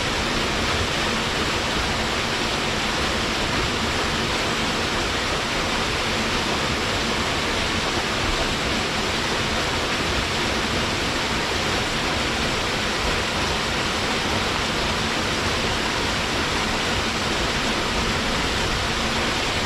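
Waterfall: water pouring and splashing without a break, a steady even rushing.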